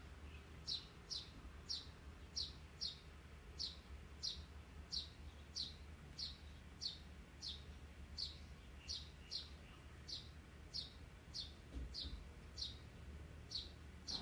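A small bird chirping over and over: short, high chirps that drop in pitch, about two to three a second, steady in rhythm.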